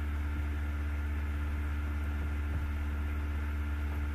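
Steady low hum with a few fainter steady tones above it and a light hiss: the background noise of the recording, unchanged throughout.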